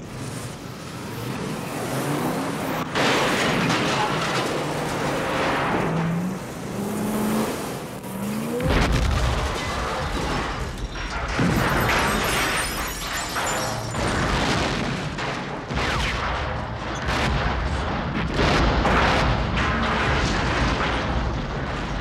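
Film sound effects of a gasoline fire and explosions: a steady roar of flames, then from about nine seconds in a series of heavy explosions over a deep, continuous rumble.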